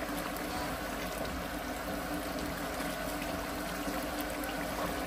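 Biryani masala of lamb and ground spices sizzling and bubbling steadily in a pot on the stove, with faint crackles over a steady low hum.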